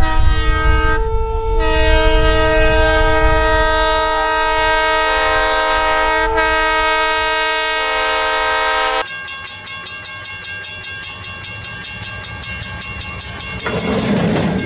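Diesel locomotive air horn blowing a long chord while the train drives through deep snow, with a short break about a second in. About nine seconds in it cuts off, giving way to a bell ringing rapidly, about four strokes a second, followed by a louder rushing noise near the end.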